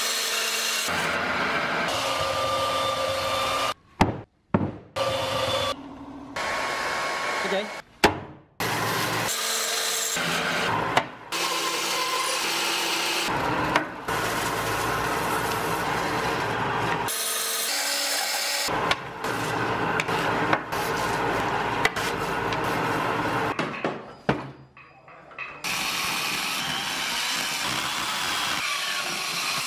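A bandsaw cutting through a thick block of wood in a string of short clips that start and stop abruptly. Near the end, a handheld angle grinder runs, cutting into the wood block.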